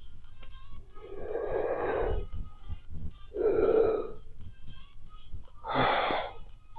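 Three breathy blows of air pushed through chewing gum to inflate bubble gum bubbles, each about a second long.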